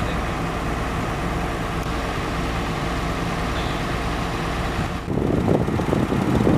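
Heavy diesel engine running steadily at idle. About five seconds in, the sound grows louder and more broken.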